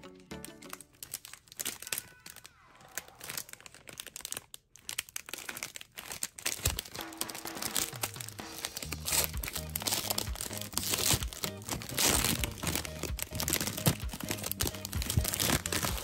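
Crinkly plastic film wrapper of a Peeps marshmallow pack being crumpled and torn open by hand. The crackling grows louder and denser from about halfway, over steady background music.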